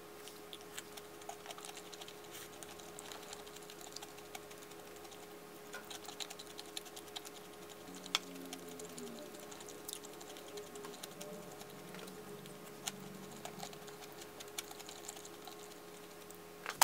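Light, scattered clicks and taps of a wooden spoon and chopsticks against a ceramic plate while scooping food, one click a little louder about eight seconds in.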